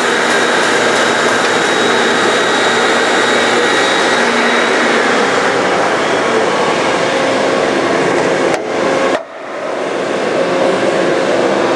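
Industrial vertical bandsaw running steadily with its carbide grit-edge blade, just after the blade has broken through a graphite block. The steady noise drops out briefly about nine seconds in, then picks up again.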